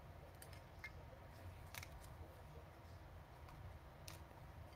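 Near silence with a few faint, sharp clicks and taps of trading cards being handled and laid out on a table, the clearest a little under two seconds in and again about four seconds in.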